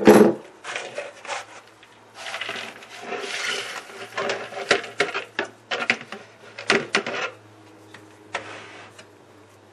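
Metal clinks and knocks from a stainless-steel electric spice grinder being handled, with a rattling rush of hard, dried turmeric pieces in its steel chamber in the middle. The grinder's motor is not running.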